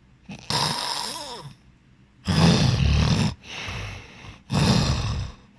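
A person snoring heavily: four rasping snores about a second long each, the second and fourth the loudest. The first has a whistling tone that slides down and up.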